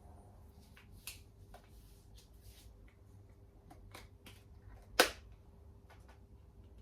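A few light clicks and taps with one sharp click about five seconds in, over a faint steady hum.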